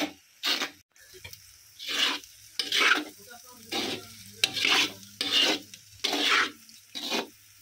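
A metal spatula scrapes and stirs a frying egg mixture around a wok in repeated strokes, about one to two a second, with the food sizzling between strokes.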